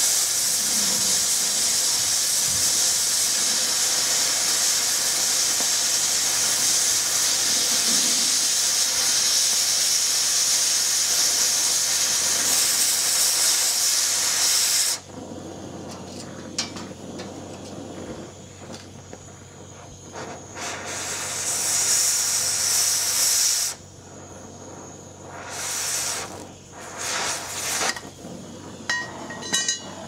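Oxy-fuel cutting torch hissing steadily as it cuts through the steel angle-iron rails of a bed frame. The hiss cuts off about halfway through, then comes back in a few short bursts of a second or two near the end.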